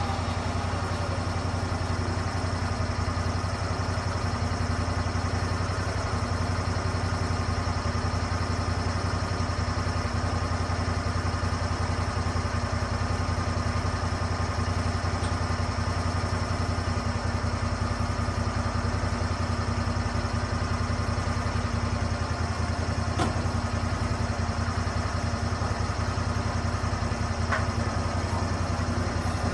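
Lucas Mill swing-blade sawmill's engine running steadily, with a couple of faint clicks late on.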